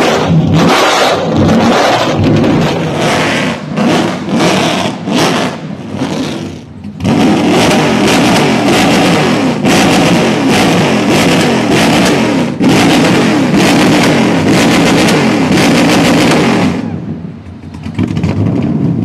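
Tuned drift car's engine revved hard at a standstill, its exhaust firing rapid backfire pops and bangs. After a short lull it revs on continuously, crackling, then drops away about two seconds before the end.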